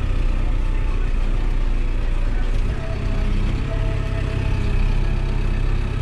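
Tractor diesel engine running steadily, with a faint higher tone coming and going.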